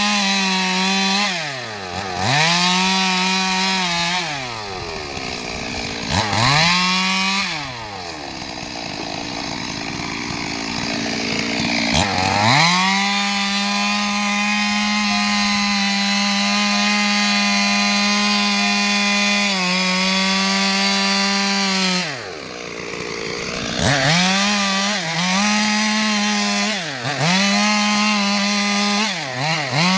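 Stihl MS 382 two-stroke chainsaw (72 cc) cutting wood at high revs. The engine speed dips and climbs back several times, holds a long steady run at full speed in the middle, then drops sharply a little over twenty seconds in before revving up again.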